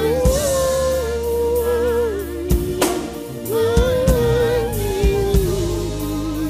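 Slow gospel worship music: a voice holds long, wavering notes without clear words over steady sustained backing chords, with a few scattered drum hits.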